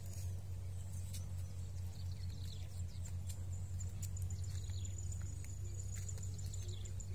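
Outdoor ambience of birds chirping in short rising and falling calls, with an insect's high, pulsing trill that grows stronger about halfway through, all over a steady low hum.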